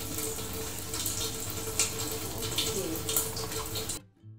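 Beef tendon sizzling in a hot wok on a gas stove as coconut milk goes in: a steady hiss with scattered crackling pops. The sound cuts off suddenly near the end.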